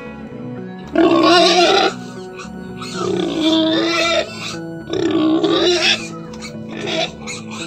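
A pig giving three loud, raspy calls, each about a second long and about two seconds apart, over background music with a steady beat.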